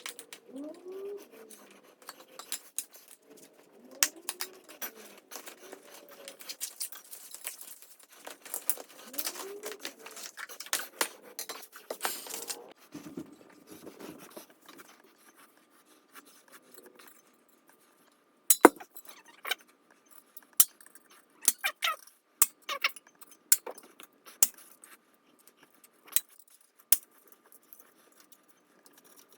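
Metal tools and bicycle parts clinking and clicking as they are handled during bike disassembly, with a string of sharp, separate clinks in the second half.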